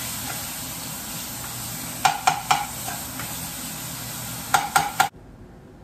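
Dry spices sizzling in hot oil in a frying pan as a spoon stirs them, with two quick sets of three sharp knocks of the spoon against the pan, about two seconds in and near the end. The sizzling stops abruptly shortly before the end.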